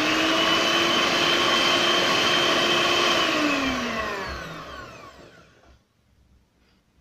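Electric hand mixer running at speed with a steady whine, its beaters whisking pancake batter in a steel bowl. About three seconds in it is switched off and the whine falls in pitch as the motor spins down and fades away.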